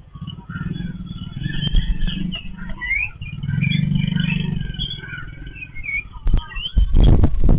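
Yellow-billed babblers chattering in short squeaky calls over a low motor-vehicle engine hum that swells twice. Loud low rumbling with knocks comes in near the end.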